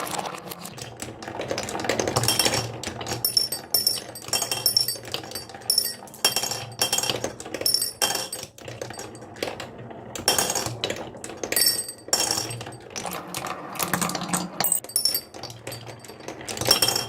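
Marbles rolling and clacking down a wooden marble run: a steady rolling rumble under a constant stream of sharp clicks and clinks, some ringing briefly.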